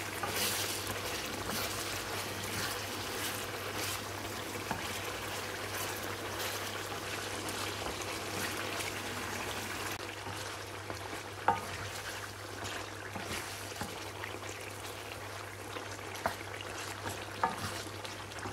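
Chicken pieces frying in hot oil and ghee on high heat, with a steady sizzle. Occasional scrapes and a few sharp clicks come from a spatula stirring the pieces around the pan.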